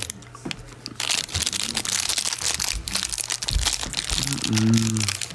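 Plastic candy wrapper crinkling and crackling as it is handled and opened, with a brief low hum from a person's voice near the end.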